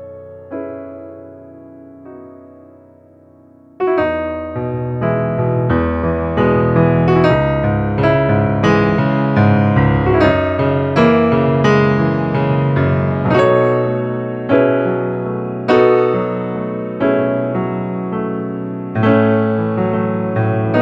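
Slow, calm piano music. A few soft notes fade away, then about four seconds in a fuller passage with low bass notes comes in, its notes struck at an even, unhurried pace.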